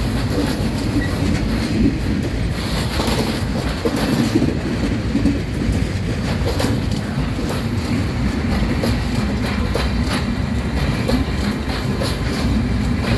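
Freight wagons, Res flat wagons and Uas hopper wagons, rolling past close by: a steady heavy rumble of wheels on the rails, broken by repeated clacks as the wheels cross rail joints.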